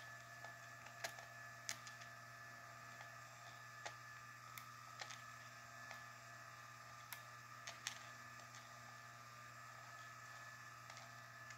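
Faint light clicks and taps of small metal parts and tools being handled as a euro cylinder lock is taken apart, scattered irregularly at about one every second, over a steady low electrical hum.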